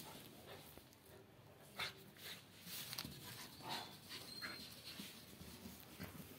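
A puppy digging in loose sand: short, irregular scratchy scrapes of its paws and muzzle in the soil, starting about two seconds in.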